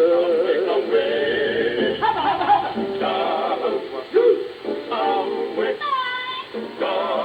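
Music with singing played over a shortwave radio, heard through its speaker.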